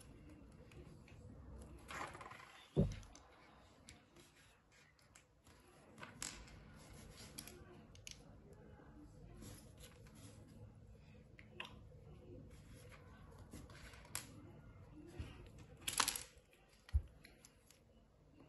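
Small plastic Lego minifigure parts handled and pressed together by hand: faint rustling broken by scattered small clicks and knocks. The sharpest come about three seconds in and again near the end.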